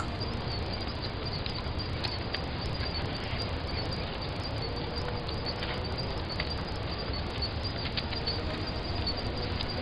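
Steady outdoor field ambience: an even hiss with scattered faint ticks and a few brief, faint chirps.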